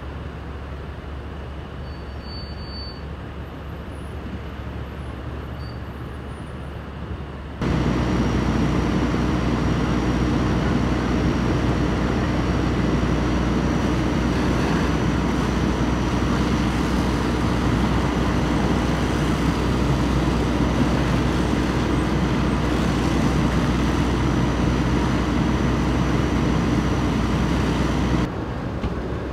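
A steady engine hum, then about eight seconds in a much louder steady noise: a fire hose spraying water, over the steady drone of an engine. The loud noise cuts off abruptly near the end.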